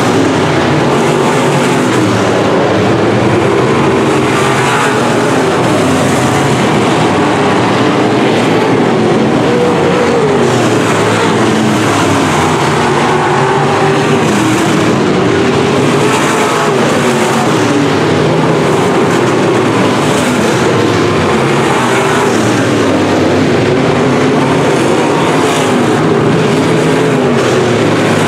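A field of B-Modified dirt-track race cars racing, their V8 engines revving up and down through the turns as they go round. Several engines overlap continuously, one car passing close by.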